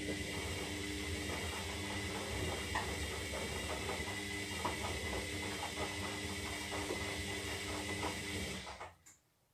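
Zanussi Lindo 300 washing machine turning its drum during the wash: the motor runs steadily with a hum and hiss, water and laundry sloshing, then stops abruptly near the end, as the drum pauses between turns.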